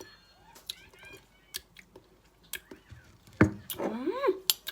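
A person tasting food: scattered small clicks and mouth sounds, then a short hummed 'mm' that rises and falls in pitch near the end.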